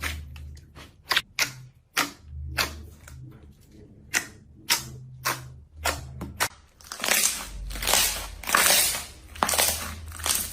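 A series of sharp crackling snaps, then from about seven seconds in a run of longer, louder crunches: a crunchy material being pressed and crushed.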